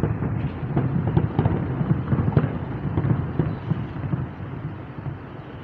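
Fireworks going off: a rapid run of pops and crackles over a low rumble, thinning out and fading away in the last second.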